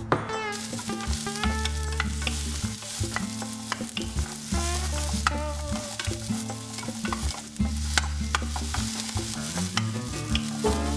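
Onion slices sizzling in a lightly oiled nonstick frying pan, beginning about half a second in, while a wooden spatula stirs them with frequent short scrapes and taps against the pan.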